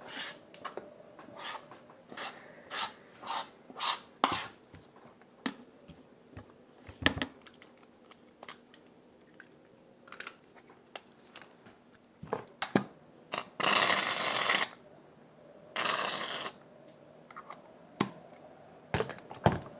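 Slime mixture being stirred by hand in a bowl: a run of short scraping and clacking strokes, thick at first and then sparse. Two longer loud bursts of hiss come about two-thirds of the way through.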